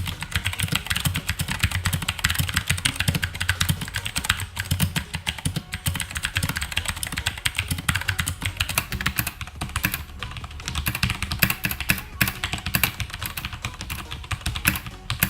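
Fast continuous typing on an Ajazz AK33 mechanical keyboard with blue clicky switches: a dense, irregular stream of sharp key clicks with a few brief pauses.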